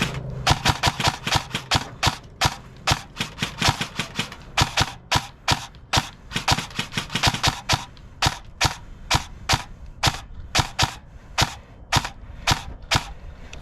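Airsoft rifle firing single shots in a steady stream, about three a second, some forty sharp cracks in all.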